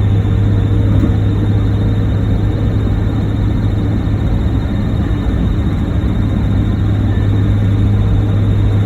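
NA Mazda Miata's four-cylinder engine running steadily with a constant low hum; this is the car whose chirping noise the owner is trying to identify.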